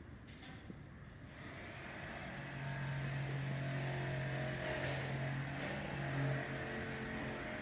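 An engine running with a steady low hum, growing louder about two seconds in and holding steady.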